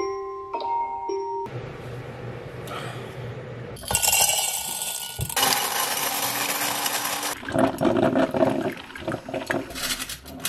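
A phone alarm's chiming melody stops about a second and a half in, followed by a couple of seconds of rushing noise. An electric blade coffee grinder then runs loudly for about three and a half seconds, and after it cuts off a metal chain necklace clinks and jingles as it is picked up.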